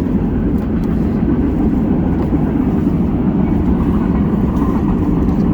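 Steady low rumbling noise with no distinct events, its energy deep in the bass.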